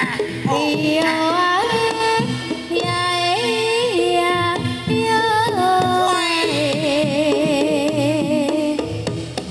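Live Javanese jaranan music: a melodic lead line with wavering vibrato and sliding notes over drums and gong-chime percussion.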